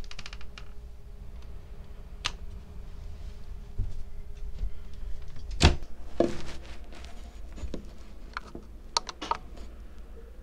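Scattered sharp clicks and taps of switches being pressed as the LPG gas control panel is turned on to open the gas solenoid valve. The loudest click comes a little past halfway, and a quick cluster of clicks follows near the end.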